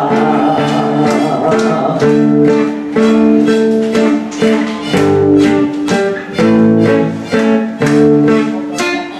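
Guitar playing an instrumental passage of plucked notes and chords, each note struck sharply and left ringing.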